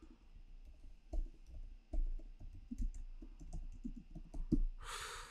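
Typing on a computer keyboard: irregular light key clicks.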